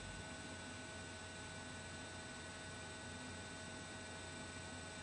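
Faint, steady electrical hum over a low hiss: room tone.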